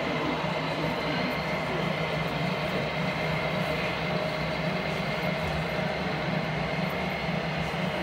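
H0 model diesel locomotive running on a layout, giving a steady engine-like drone that does not change.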